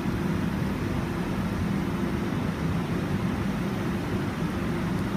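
Steady low hum of a double-deck electric train standing at the platform, over an even hiss.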